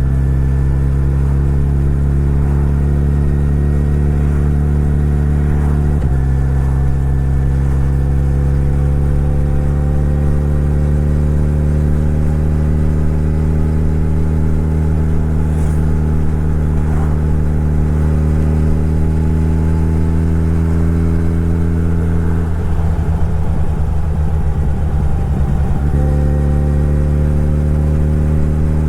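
Suzuki Hayabusa's inline-four engine running under way, its note climbing slowly. The engine tone breaks briefly about six seconds in, and drops out into a rough noise for a few seconds near the end before it comes back.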